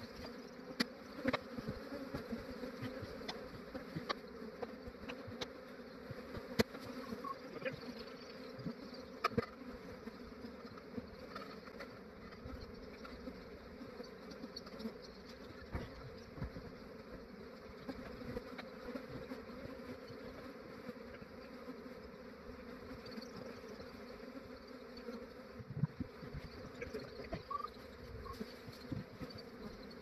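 A large swarm of honey bees buzzing steadily, a dense continuous hum, with scattered short sharp clicks.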